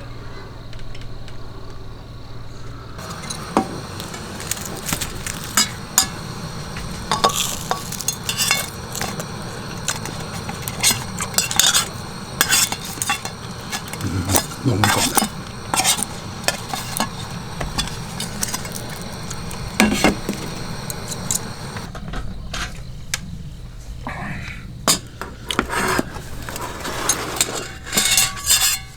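Dishes and utensils handled, with many irregular short clinks and knocks over a steady low hum; the knocks come thicker from about three seconds in and thin out later on.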